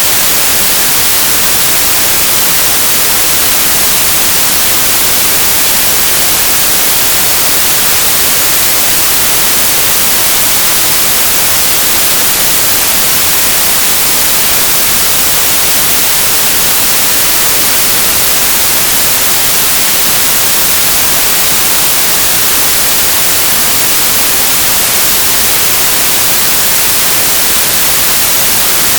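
Loud, steady hiss of static. It is even and unchanging throughout, brightest in the treble, with no other sound on top of it.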